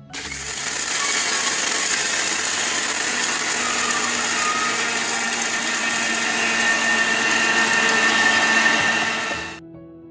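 Electric mixer grinder running at full speed, grinding cocoa into a fine powder in its jar. It spins up over about a second, runs loudly and steadily, and cuts off suddenly near the end.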